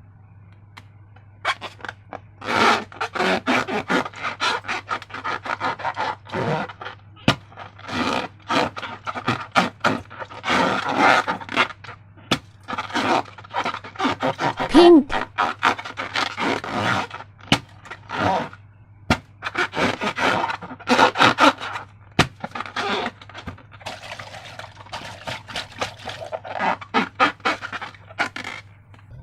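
Slime and rubber balloons being handled: irregular bursts of squishing, crackling and scraping with a few sharp clicks, over a steady low hum.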